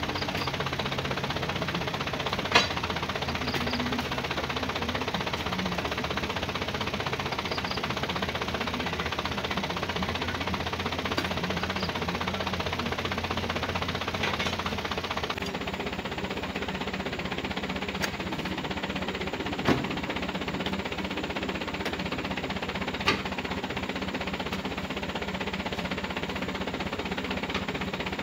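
Light truck's engine idling steadily while oil palm fruit bunches are loaded into its cargo bed, with a few short sharp knocks as the bunches hit the truck.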